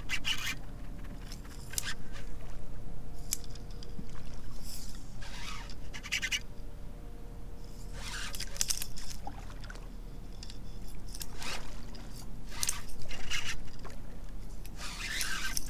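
A hooked fish splashing at the surface beside a kayak during the fight, heard as a string of separate short splashes and scrapes.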